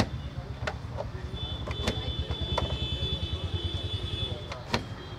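A vehicle engine idling with a rapid, even low throb, and a few sharp knocks as a hand vegetable slicer is worked on the counter.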